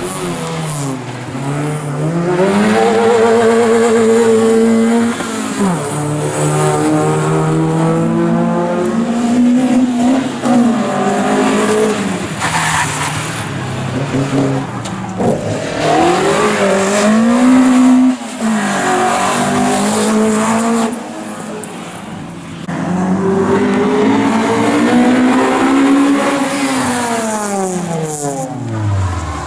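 Small four-cylinder hatchback rally cars (a Nissan Micra, a Peugeot 205 and a Honda Civic) driven hard past one after another, engines revving up through the gears with the pitch climbing and then dropping at each shift, and falling steeply near the end.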